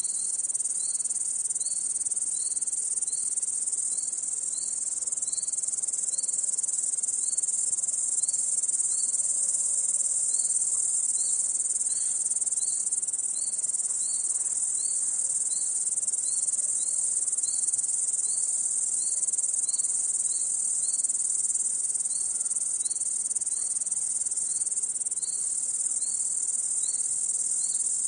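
A chorus of crickets: a steady high-pitched trill, with a lower, evenly repeated chirp from a nearer insect pulsing a little faster than once a second.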